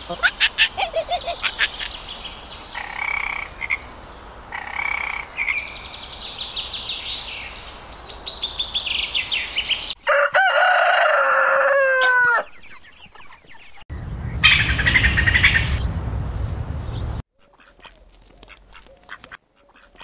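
A run of different animal sounds. For about the first ten seconds, rapid high-pitched chirping trills with a few lower pulsed calls. About ten seconds in, a rooster crows once, a call of about two seconds. This is followed by a louder, noisier stretch of about three seconds and then faint clicks.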